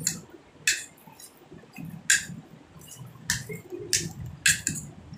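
Wood apple pulp being mashed and mixed by hand in a steel bowl: irregular sharp, wet clicks and squelches, about six loud ones over a low rustle of handling.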